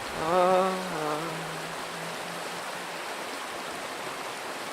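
A sung note held by a voice, stepping down in pitch and fading out about two seconds in, over a steady rushing noise like running water that continues alone afterwards.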